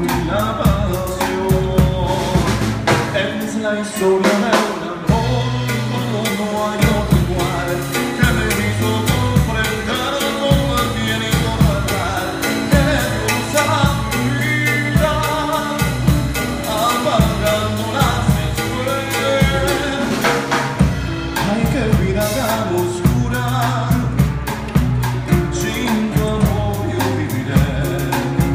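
A live band playing: a drum kit keeping a steady beat under acoustic guitars and a violin, with singing. The drums drop out briefly about four seconds in, then come back.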